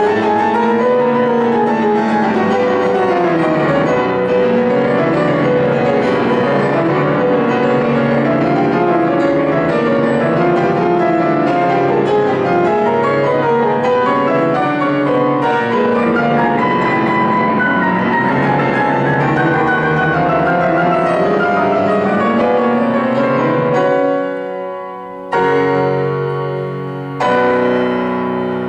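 Grand piano played solo in fast, continuous running passages that sweep up and down, then two loud chords a couple of seconds apart near the end, each left to ring and fade.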